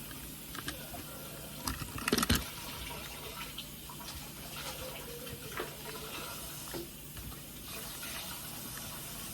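Clicks and knocks from handling a plastic toy train and working at its screws, loudest in a short cluster about two seconds in, over a steady background hiss and low hum.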